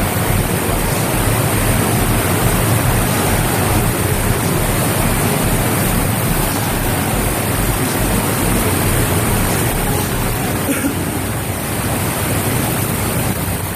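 Water rushing through a concrete storm sewer tunnel: a steady, loud wash of noise that doesn't let up.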